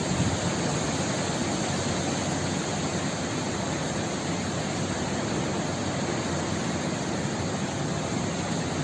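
Steady rushing noise of heavy cyclone rain and wind, even throughout with no distinct events.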